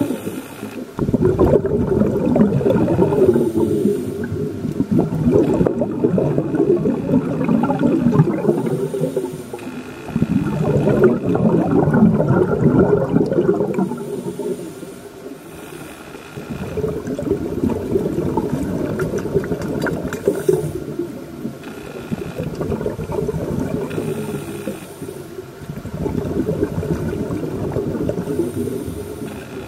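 Scuba regulator exhaust bubbles heard underwater: a diver's exhalations come as bubbling surges lasting a few seconds each, about every five seconds, with quieter gaps between breaths.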